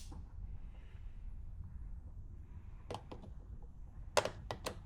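Faint, sharp clicks and taps of metal hand tools being handled: three quick clicks about three seconds in and four more near the end.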